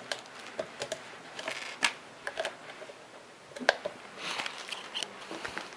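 Handling noise: a few sharp plastic clicks and brief rustles as storage cards are pulled from and handled at a small TV box.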